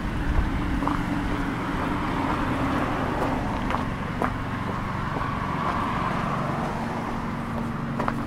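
Street traffic: a car going by on the road, its engine and tyre noise swelling through the middle and easing off, with a few footsteps on the paved footpath.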